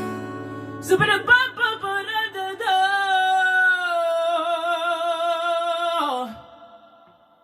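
Solo female voice singing a line over an acoustic guitar chord, ending on one long held note with a slight vibrato that slides down and fades about six seconds in.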